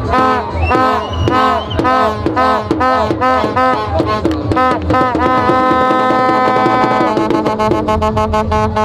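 Loud music with drumming under a pitched melody instrument. The instrument plays a quick repeated phrase, then holds one long steady note from about five seconds in.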